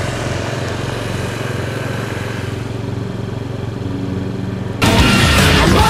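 Small Honda scooter engine running steadily. Loud music cuts in abruptly about five seconds in.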